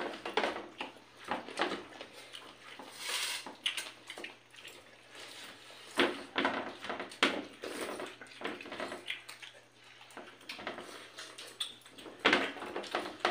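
Eating sounds: chewing and fingers mixing rice and curry on steel plates, with scattered small clicks and taps, over a low steady hum.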